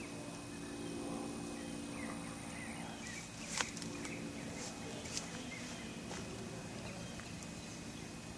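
Outdoor ambience: faint, scattered bird chirps over a steady low hum, with a couple of sharp clicks about three and a half and five seconds in.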